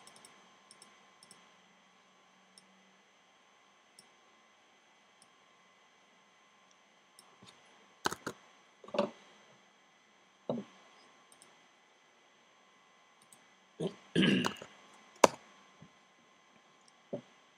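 Scattered computer clicks from a mouse and keyboard, a handful of separate sharp clicks spread over the second half, after a stretch of near silence with faint room tone.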